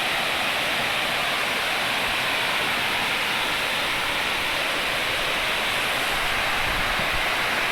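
Steady rushing roar of a waterfall, its water falling and splashing without a break. A low rumble joins near the end.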